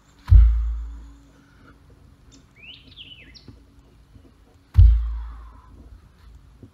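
A heavy rock dropped onto the forest floor twice, about four and a half seconds apart, each a deep thud. Birds chirp in between.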